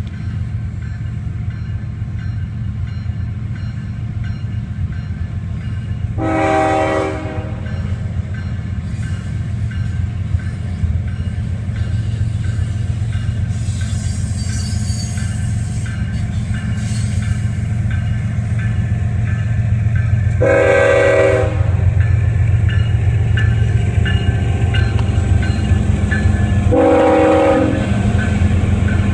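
CSX freight train's diesel locomotives rumbling steadily, louder as they draw close, with three blasts of the locomotive's air horn: one about six seconds in, one about twenty seconds in, and a shorter one near the end.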